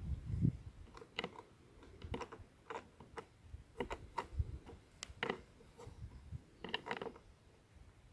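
A metal open-ended spanner on a plastic number-plate nut and bolt fitted as a spike to a Flymo R1200 robot mower's wheel: an irregular string of light clicks, roughly one or two a second, as the bolt is turned and tightened.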